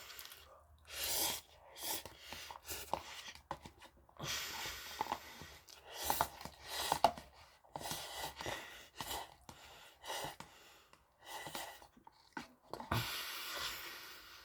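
Close-miked eating of saucy instant noodles: irregular slurps and wet chewing, each burst about a second long with short pauses between, loudest near the end.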